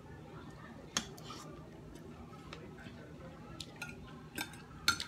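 Metal spoon and fork clinking and scraping on a plate as shrimp is cut up: a handful of separate short clicks, the loudest near the end.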